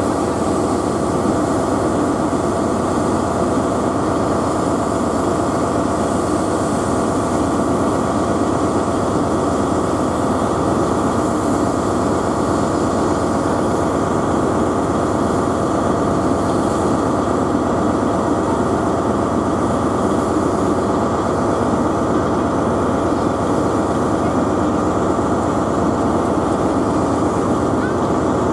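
Steady, loud mechanical running noise of a train, unchanging throughout.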